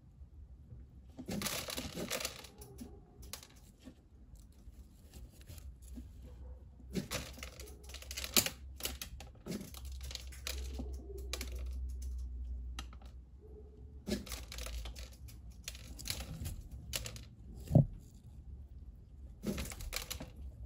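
Common kestrel tearing at raw meat with its beak: several bursts of wet tearing and crackling a few seconds apart, with one sharp thump, the loudest sound, about three-quarters of the way through.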